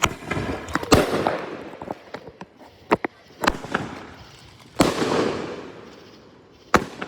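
Consumer fireworks going off: about six sharp bangs spread over several seconds, several of them followed by a fizzing, crackling tail that dies away.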